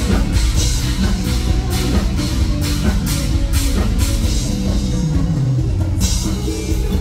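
Live Thai luk thung band playing loud through a stage PA, with a drum kit keeping a steady beat of about two strikes a second over heavy bass. The drums thin out briefly near the end, then the full beat returns.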